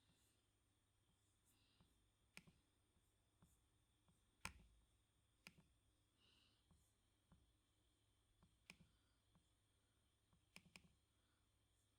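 Faint, irregular clicks of computer keyboard keys being tapped slowly, about fifteen in all, the loudest about four and a half seconds in.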